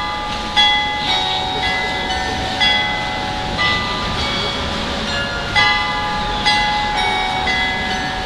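Carillon bells in a church tower playing a slow tune. Single notes and chords are struck about every half second to a second, and each one rings on into the next.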